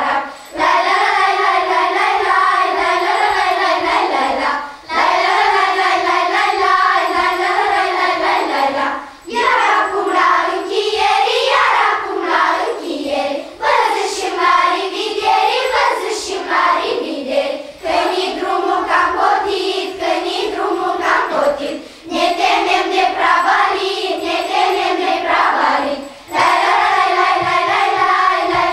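Children's choir singing a Christmas carol (colind) together, in sung phrases of about four seconds each with brief pauses for breath between them.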